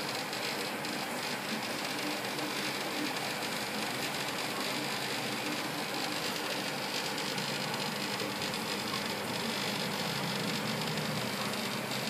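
Steady electric hum over a constant hiss from running aquarium equipment, unchanging throughout.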